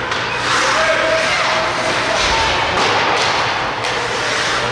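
Ice hockey game sound in a rink: a steady wash of skate and stick noise over the ice, sharp knocks of sticks, puck and boards, and shouting voices.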